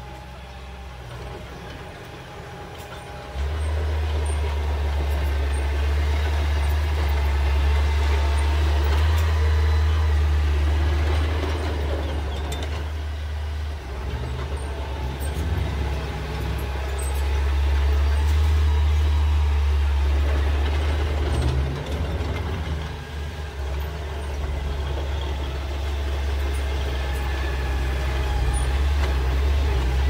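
Small crawler bulldozer's diesel engine running under load, a deep steady drone that jumps up sharply about three seconds in and dips briefly twice as it works the dirt.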